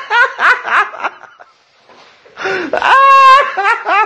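A person laughing hard: quick high-pitched bursts of laughter, then a long high squeal about two and a half seconds in, then more bursts.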